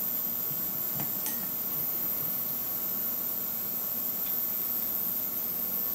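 Steady electrical hum with a thin high whine, and a few faint clicks from the metal oil pump cover and gears being handled: two about a second in, one near four seconds.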